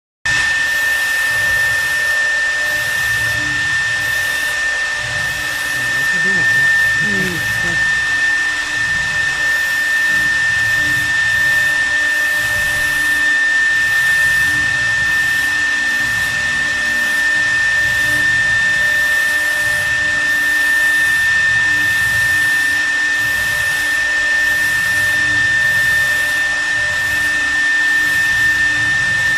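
CNC wood router's spindle running steadily with a constant high-pitched whine over a hiss of cutting noise, carving wood.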